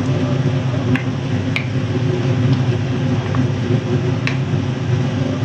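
Wooden spatula stirring green beans and chili sauce in a nonstick wok, with a few sharp clicks as it knocks the pan, about three times. Under it runs a steady low hum.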